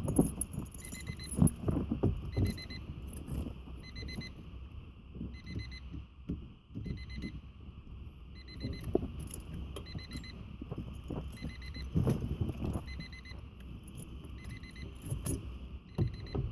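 A car's electronic warning chime beeping steadily, a little more than once a second, with keys jangling and irregular knocks and rattles.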